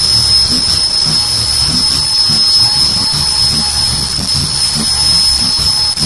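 Automatic ear-loop face mask making machine running: a steady high-pitched whine over a low rhythmic beat of about two strokes a second from the machine's working cycle.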